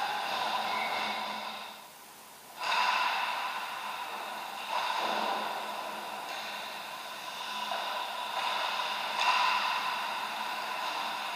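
Ice hockey rink sound: a hiss of skates scraping and carving on the ice over a steady hum of tones, dropping away briefly about two seconds in and returning sharply.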